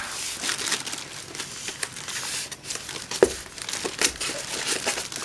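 Plastic wrapping crinkling and rustling irregularly as a large speaker unit is handled and worked out of its box, with scattered sharper crackles.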